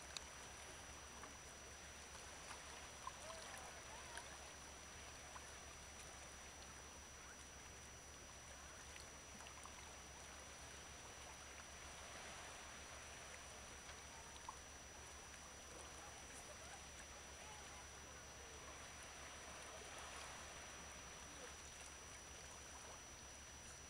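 Near silence: a faint, even wash of small waves on a rocky shore, swelling slightly a few times, with a thin steady high tone alongside.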